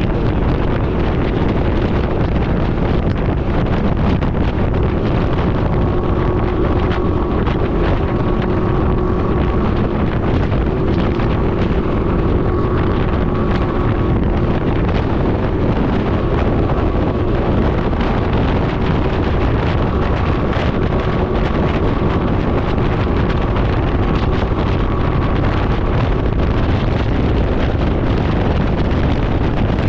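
Wind buffeting the microphone while riding a Can-Am Ryker 900 at a steady cruising speed. Under the wind, the three-cylinder engine drones at an unchanging pitch.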